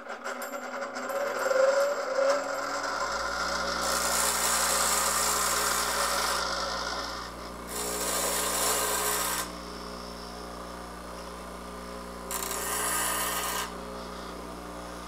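Ryobi 8-inch bench grinder starting up, its motor hum rising in pitch for the first few seconds and then holding steady. A lathe parting-tool blade is pressed against the spinning wheel three times, the first pass longest, each a loud hissing grind, to touch up the blade's dulled, rolled-over cutting edge.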